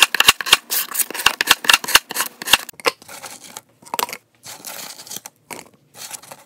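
Large kitchen knife chopping frozen banana on a plastic cutting board: quick, sharp knocks for about two and a half seconds. Then frozen banana pieces are dropped and scooped into a plastic Nutribullet blender cup, with a few scattered knocks and a short scrape.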